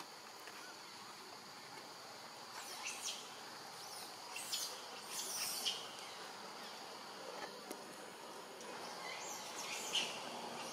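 Forest ambience: insects droning steadily at a high pitch, with a handful of short high chirps scattered through, the loudest near the end.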